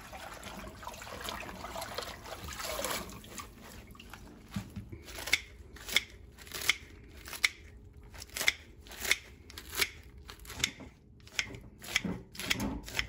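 Kitchen scissors cutting through crisp escarole leaves: sharp crunching snips about once a second, starting a few seconds in.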